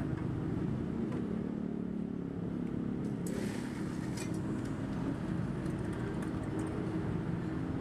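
Steady low rumble of street traffic, with a brief hiss about three seconds in followed by a few light ticks.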